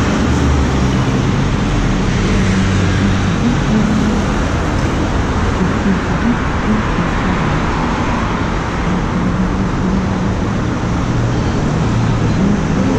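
Steady road traffic noise from cars passing on a wet city street.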